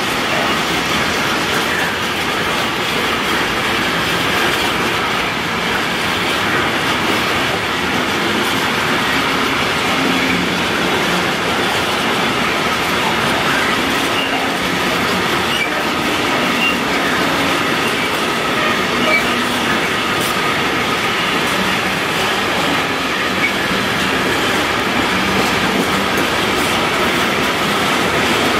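Freight train of tank wagons rolling past, its wheels running steadily on the rails.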